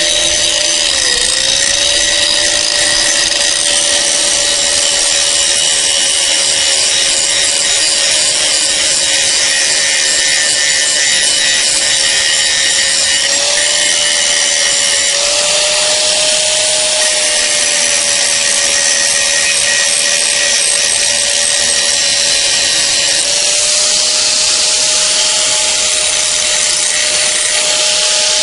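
Angle grinder running under load as its disc grinds the cutting edge of a steel lawn mower blade to sharpen it: a steady motor whine that wavers slightly as the disc bears on the steel, under a harsh grinding hiss.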